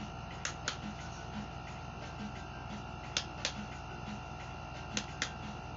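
Small rechargeable desk fan running with a steady motor hum and a faint regular pulse about twice a second, broken by pairs of sharp clicks, a quarter second apart, that come back every two to three seconds.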